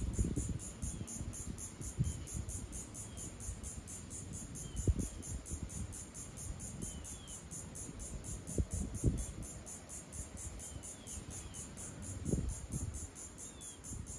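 Insects calling in a steady, evenly pulsed high-pitched chorus of about three pulses a second, with a few faint short chirps over it and intermittent low rumbling underneath.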